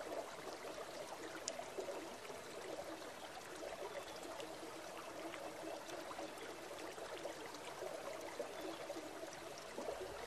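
Steady flow of a river or creek, with a few faint ticks from an orange being peeled by hand.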